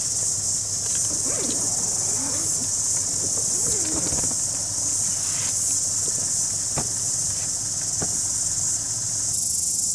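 Steady, high-pitched insect shrilling, with two sharp clicks a second or so apart late on as the latches of a hard-shell suitcase are opened.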